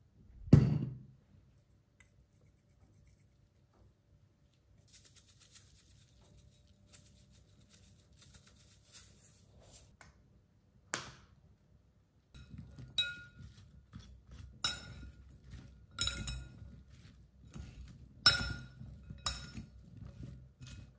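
A metal fork and spoon tossing sliced pepper and onion salad in a ceramic bowl: irregular clinks of metal on the bowl, each with a short ring, and soft rustling of the vegetables in between. A single loud knock comes about half a second in, and faint fine crackling runs through the middle.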